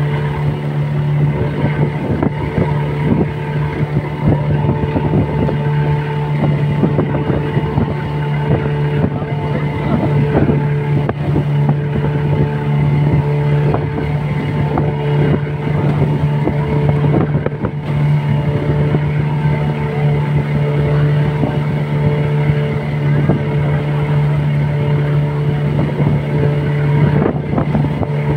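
Motorboat engine running at a steady drone as the boat cruises, with a constant low hum, over a rough rush of wind and water.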